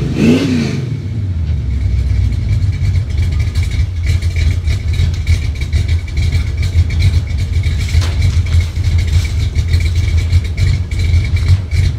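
Dodge Charger 'General Lee' engine running after a cold start: a quick rev right at the start rises and falls back, then it settles into an uneven, pulsing idle.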